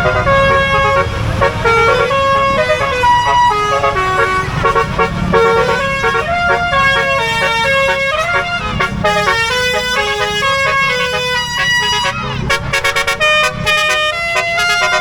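Bus telolet (basuri) horn playing a melody: a run of steady horn notes stepping up and down in pitch. The notes turn short and choppy near the end, over a low rumble.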